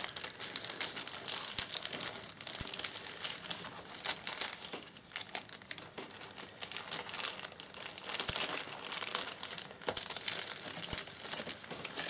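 Clear plastic wrapping crinkling and crackling as it is pulled off a new replacement laptop keyboard, with a few small taps.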